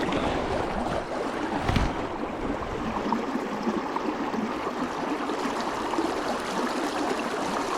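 River water flowing, a steady rush, with one brief low thump about two seconds in.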